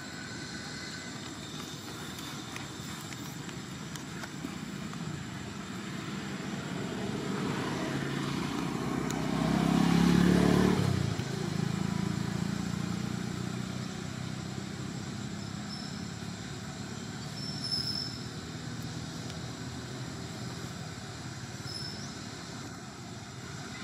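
A road vehicle passing by: its engine and tyre noise swells to a peak about ten seconds in, then fades over the next few seconds, over a steady low hum of traffic.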